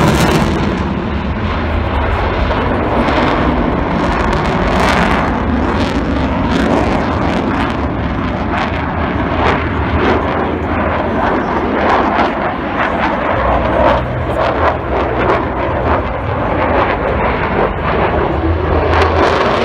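Loud, continuous jet noise from an F-16 fighter manoeuvring overhead, with a rough, uneven texture throughout.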